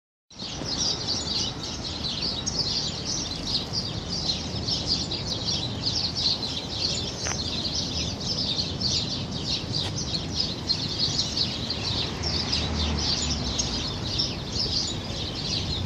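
Many small birds chirping rapidly and continuously, over a low, steady background rumble.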